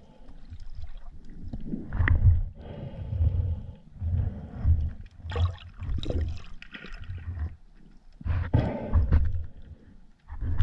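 Underwater water noise in shallow sea, heard through a camera housing: low rumbling surges about once a second, with short bursts of hiss around the middle and again near the end.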